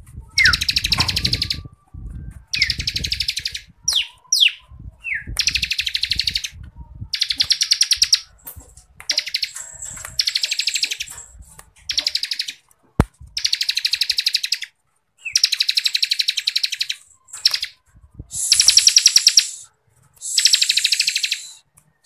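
Ciblek kristal (a prinia) singing its rapid 'ngebren' trill: fast, dense rattling bursts about a second long, repeated with short gaps, with a few quick rising notes in the first few seconds. Soft low thumps near the start and a single sharp click about halfway.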